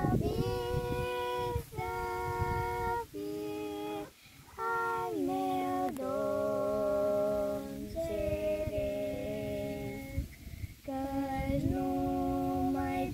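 A female voice singing a slow melody unaccompanied, holding long notes and pausing briefly between phrases, with a steady low rumble underneath.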